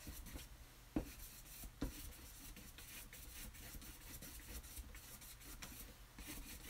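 Paintbrush strokes on canvas: faint, scratchy brushing of paint across the surface, with two light knocks about one and two seconds in.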